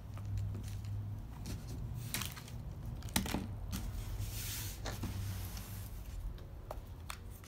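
Plastic toy packaging being handled and torn open: scattered crinkles and clicks, with a longer tearing rustle about four to five seconds in, over a low steady hum.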